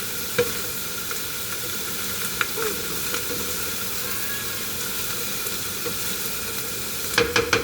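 Sliced bitter gourd sizzling in hot oil in a pan, a steady hiss with occasional pops. Near the end come a few quick clacks of a utensil stirring against the pan.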